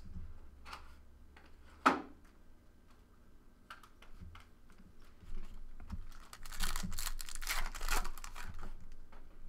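Trading cards being handled over a table: a sharp click about two seconds in, then a few seconds of rustling and crinkling.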